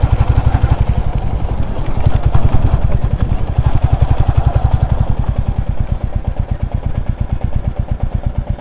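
Royal Enfield Classic 350's single-cylinder engine running at low speed, with an even, pulsing beat. The beat becomes a little softer in the second half as the motorcycle rolls slowly in.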